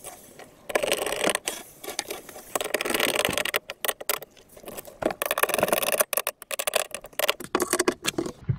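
Irregular scraping and rattling with a string of sharp clicks: a metal tool and a cupboard door's hinge being worked as the door is fitted back onto its under-sink cabinet.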